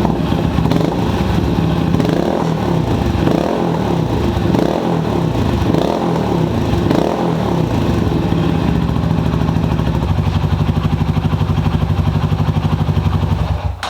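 Honda FTR223's single-cylinder four-stroke engine running after a top-end overhaul, free of the abnormal engine noise it had. Its speed rises and falls a few times, then it idles with a steady even beat and is switched off just before the end.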